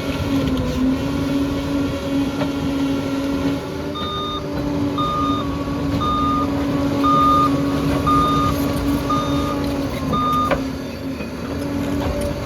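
Bulldozer's diesel engine running steadily. From about a third of the way in, its reversing alarm sounds seven beeps, about one a second, while the machine backs up, then stops.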